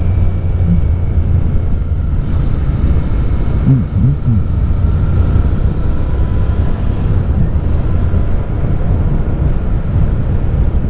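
Royal Enfield Continental GT650's parallel-twin engine running steadily at road speed, mixed with wind rush on the rider's microphone.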